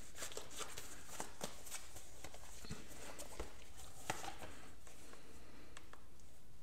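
Faint, scattered taps and rustles of hands handling a tablet in its case, with one slightly sharper tap about four seconds in.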